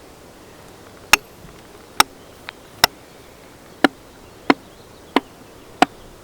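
A tool striking cedar as it is split by hand: seven sharp blows, one every second or a little less, with a fainter knock between the second and third.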